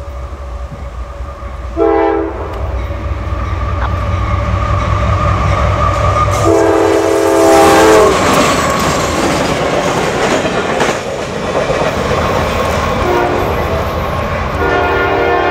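Diesel locomotive approaching and passing close by, sounding a chime air horn: a short blast about two seconds in, a longer one about six and a half seconds in as it draws level, and another near the end. The engine's low rumble builds as it nears, then gives way to the clatter of wheels on the rails as the train goes by.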